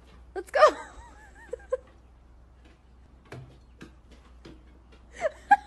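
Short, high, wavering vocal cries about half a second in and again near the end, the loudest sounds here. Between them come scattered light ticks and knocks, typical of a golden retriever's claws and the stick it carries bumping on wooden steps as it goes down the stairs.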